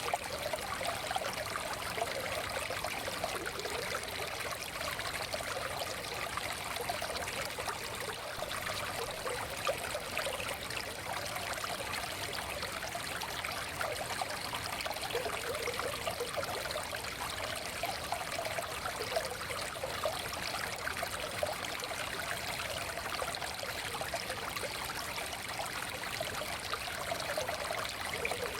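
Forest stream running steadily over stones, a continuous babbling and trickling of water.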